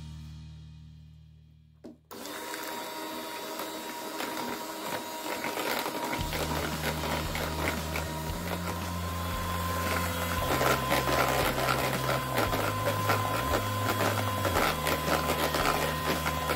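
Electric hand mixer switching on about two seconds in and running steadily, its beaters whisking an egg into creamed butter batter in a plastic jug. Background music plays underneath.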